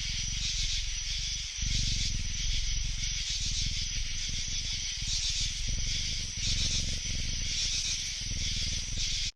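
A steady hiss with a low rough rumble underneath, which dips briefly about one and a half seconds in and cuts off suddenly at the end.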